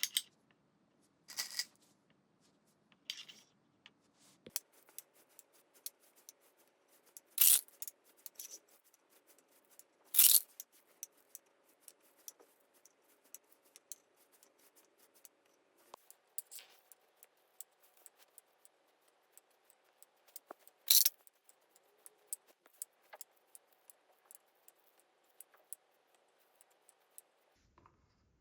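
Marbles rolling and clacking down a wooden HABA marble run: a faint steady rolling hum under many small clicks, with several louder wooden knocks as pieces drop and hit the track.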